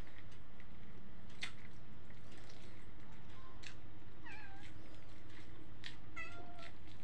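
A cat meowing twice: a falling meow about four seconds in and a short, level one about six seconds in, over sharp clicks of someone chewing.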